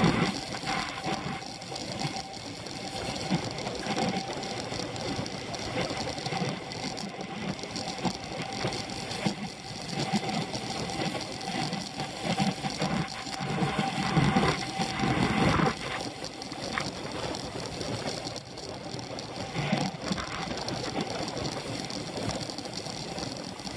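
Rapid mechanical rattling and whir of a Scott Foil road bike with a Dura-Ace drivetrain ridden at race speed, picked up by a camera clamped to the handlebars, over a steady rush of wind and road noise. The rattling swells louder a few times.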